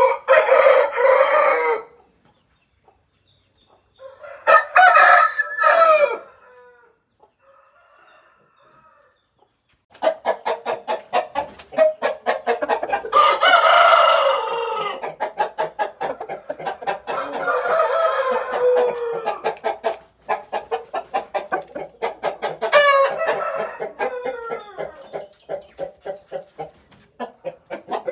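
Aseel rooster crowing about five times, each crow a drawn-out call. From about ten seconds in, a fast run of clucking goes on beneath the later crows.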